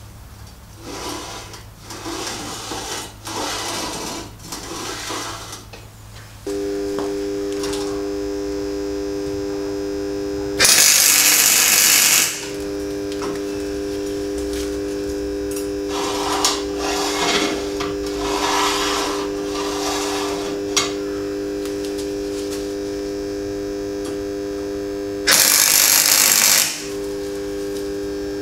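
Steel parts handled and shifted on the bench, then a steady hum from about six seconds in, broken twice by a MIG welder laying a short tack weld, each a loud crackling hiss of about a second and a half: once about ten seconds in and again near the end.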